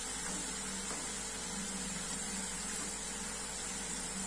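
Chakli deep-frying in hot oil: a steady sizzle of bubbling oil. The bubbling has not yet died down, the sign that the chakli are not yet fully fried.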